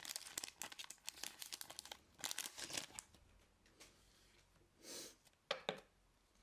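Foil wrapper of a trading-card booster pack crinkling densely as the cards are pulled out of it, for about three seconds. A few brief rustles of card handling follow near the end.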